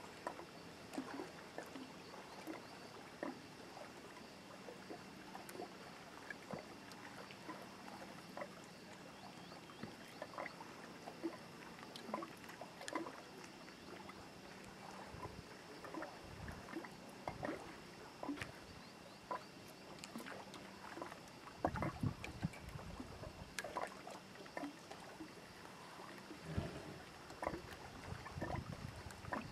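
Small lake waves lapping at the shore and dock in faint, irregular little splashes, with a few low rumbles about two-thirds of the way in and near the end.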